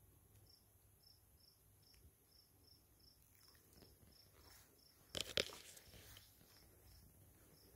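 Faint cricket chirping steadily, about three short chirps a second, over near silence. About five seconds in, a brief rustle.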